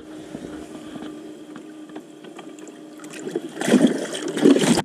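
Water splashing in a bass boat's livewell: a faint steady hum, then a loud splashing burst lasting about a second near the end that stops abruptly.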